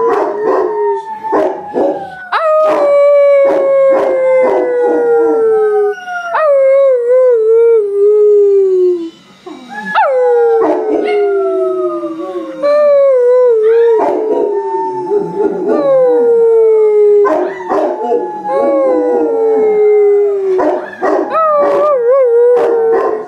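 Dog howling: a string of long howls, each drawn out over a few seconds and sliding slowly down in pitch, with short sharp yips and barks in between.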